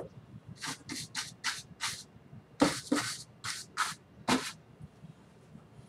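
Bristle brush scrubbing wet oil paint onto a canvas in about a dozen short, quick swishes, then stopping about four and a half seconds in.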